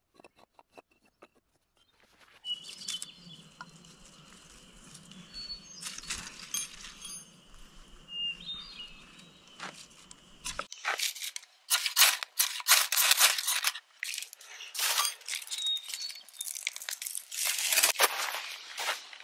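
A quiet stretch with a few faint clicks and short high chirps, then, from about halfway through, a wood campfire crackling with many sharp snaps and pops.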